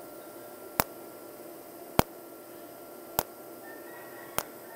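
Tenya TIG250PC TIG welder in cold TIG mode firing short automatic 210-amp arc pulses: a sharp crack about every 1.2 seconds, four times, over a steady faint hum. The trigger is held once and the machine pulses by itself at a slow rate.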